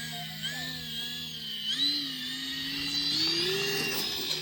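Electric brushless motor and propeller of an E-flite RV-7 RC airplane whining, its pitch stepping up at about a second and a half and climbing further near the end as the throttle is advanced.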